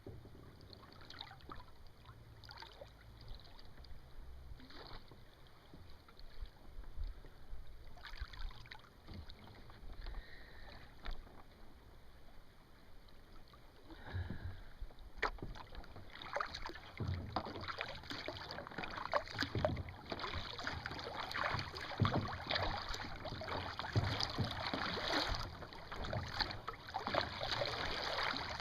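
Water splashing and lapping against a sailing kayak's hull as it moves along, in irregular little splashes and crackles. It grows louder about halfway through.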